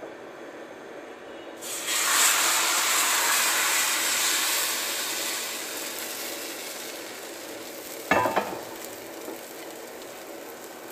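Thin choux-dough pancake batter hitting a hot, lard-greased cast-iron frying pan, sizzling loudly at once and then slowly dying down as it sets. About eight seconds in, a couple of sharp knocks as the pan is set back down on the gas stove's grate.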